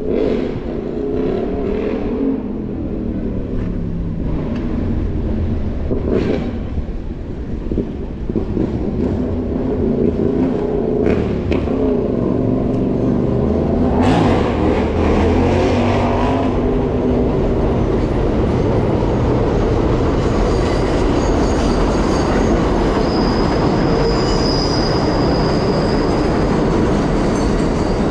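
Rail train running by, its motor pitch rising and falling, with a thin high wheel squeal in the last several seconds.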